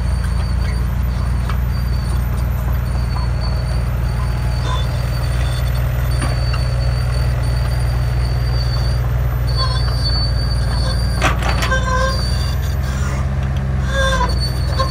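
Hitachi compact crawler excavator's diesel engine running steadily as it digs soil, its note shifting slightly near the end. A few short knocks and brief squeaks from the bucket and arm come about two-thirds through and again near the end.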